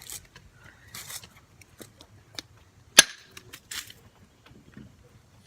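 A hammer strikes a small battery hard once, a sharp crack about three seconds in. Around it are a few lighter taps and short scuffing sounds.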